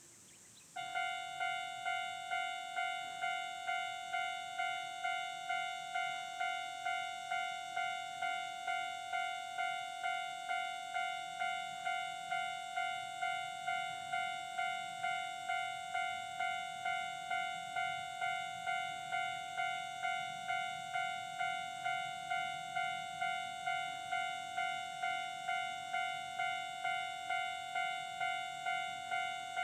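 Japanese level crossing warning bell starting up about a second in, then ringing on in a steady, even repeating ding of about one and a half strikes a second, signalling that a train is approaching.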